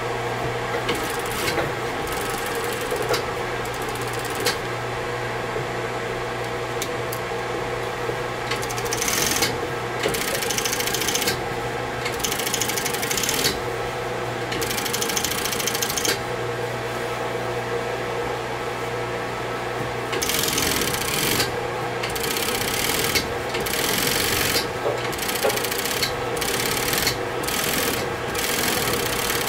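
Japanese industrial sewing machine stitching heavy denim in repeated bursts of one to two seconds, each a fast rattling run of the needle, over a steady hum between bursts.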